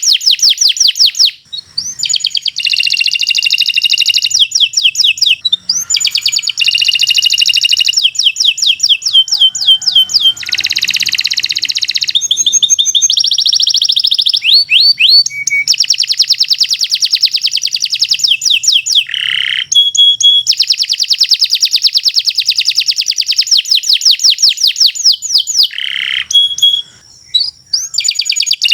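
Domestic canary singing a long, loud song of rapid trills and repeated chirps, phrase after phrase with only brief pauses.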